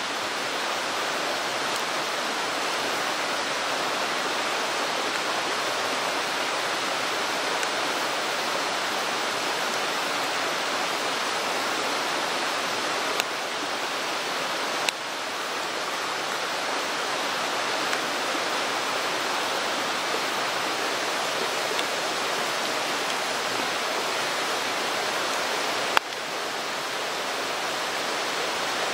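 Mountain stream rushing steadily over rocks, with a few sharp clicks; the loudest is near the end.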